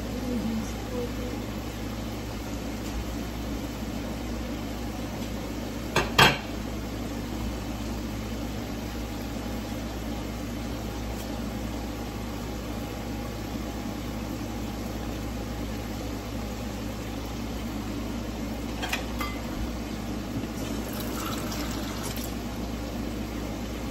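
Steady kitchen hum with kitchenware clinks: one sharp, loud clink about six seconds in, and a few lighter clinks near the end.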